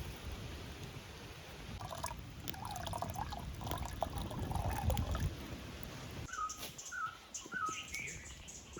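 Forest ambience with birds calling: warbling calls a few seconds in, then a run of short falling chirps repeated about every half second near the end, over a low rustling rumble.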